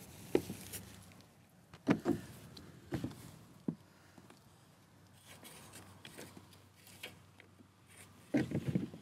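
Kayak seat latches being unlatched and the seat frame handled: several separate plastic-and-metal clicks and knocks over the first few seconds, then a quick cluster of rattling knocks near the end.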